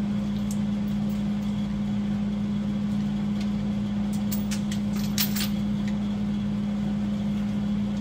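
A steady low mechanical hum, with a few light metallic clicks of hand tools being handled about halfway through.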